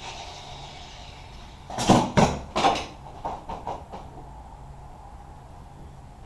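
A quick run of hard knocks or clunks: three loud ones about two seconds in, then four or five lighter ones.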